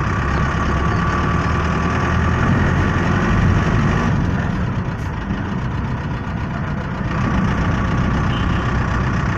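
Engine and road noise from inside a moving vehicle: a steady low rumble that eases off for a few seconds in the middle, then picks up again.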